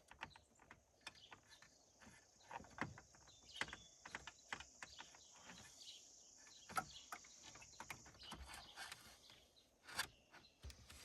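Faint, scattered clicks and light taps of small parts being handled, with a faint steady high hiss that stops about eight seconds in.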